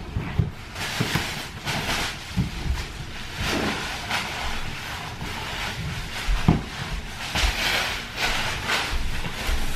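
Rustling and soft thumps of throw pillows being handled and set onto a fabric sofa, in a run of short swishes with a sharper knock about six and a half seconds in.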